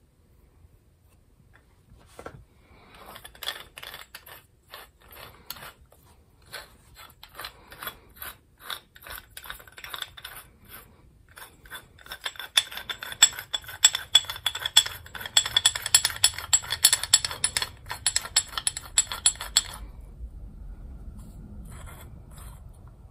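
Metal clicking of a small hand-worked mechanism, ratchet-like. It starts at two or three clicks a second, turns into fast, dense clicking with a ringing metallic edge about halfway through, and stops a few seconds before the end.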